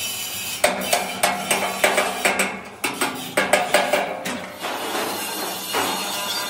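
Quick, irregular metal-on-metal hammer strikes on a steel frame, about three or four a second. They start about half a second in and stop after about four and a half seconds. Background music runs under them.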